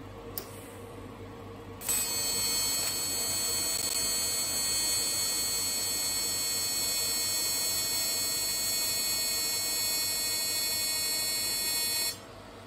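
AC TIG welding arc on aluminum, a steady high-pitched buzz. It is struck about two seconds in and cut off abruptly about half a second before the end.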